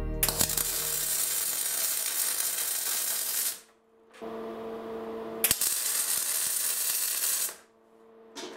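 MIG welder arc tack-welding small steel blocks onto a steel plate: two steady bursts of arc noise of about three seconds each with a short pause between, then a brief burst near the end.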